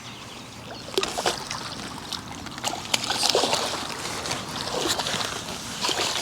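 Hooked carp splashing at the water's surface as it is drawn over the landing net, in irregular splashes that start about a second in.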